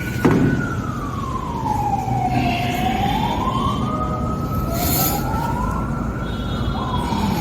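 A siren wails, its single tone sliding slowly down in pitch and back up over a few seconds, with a second rise and fall near the end. A sharp knock comes just after the start, and a short hiss comes about five seconds in.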